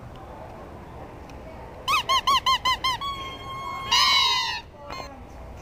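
Toy turkeys squeezed by hand, squeaking: a quick run of six squeaks about two seconds in, a held squeak, then a louder, longer squeak that falls in pitch.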